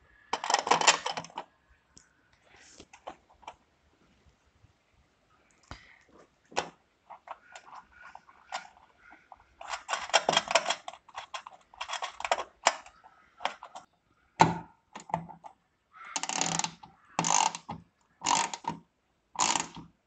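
Small bolts and nuts clinking and rattling as they are handled and fitted at a metal charge-port housing on a car body, in irregular bursts with sharp clicks, and near the end four short bursts about a second apart.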